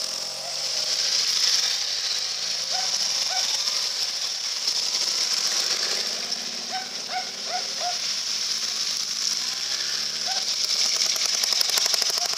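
Motorcycles riding one after another through a shallow ford, their engines running with pitch rising and falling as they pass. Water hisses and splashes from the tyres, loudest near the start and again near the end as bikes cross close by. A few short chirps come at intervals.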